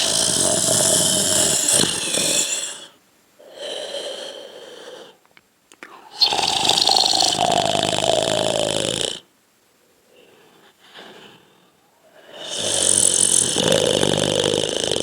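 A person snoring: three long, loud snores of about three seconds each, with a shorter, quieter breath between them.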